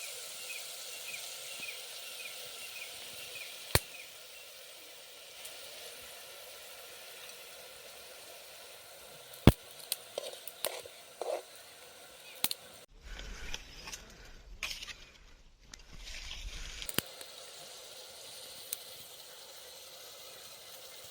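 Food frying in a pan: a steady sizzle, with a few sharp clicks of a utensil against the pan. A little after the middle there is a low rumble lasting about four seconds.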